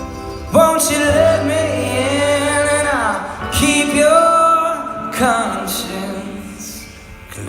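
Live band music with a singer holding long notes over the band, two phrases ending in a falling glide; the music fades quieter near the end.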